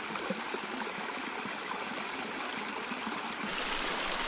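A small river flowing: a steady rush of running water.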